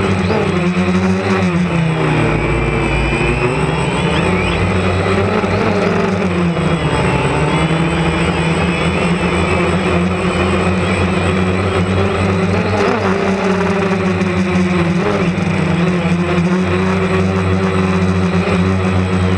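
DJI Phantom 2 Vision+ quadcopter's motors and propellers running with a steady buzzing hum, its pitch shifting up and down a few times as the drone manoeuvres.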